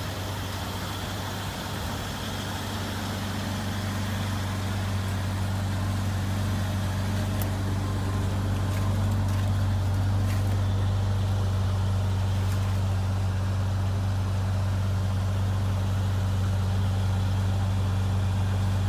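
2001 Jeep Grand Cherokee engine idling steadily, just started on a newly installed battery and running good.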